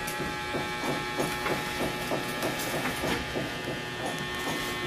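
Steady electrical hum made of several fixed tones, with faint short ticks repeating about three times a second.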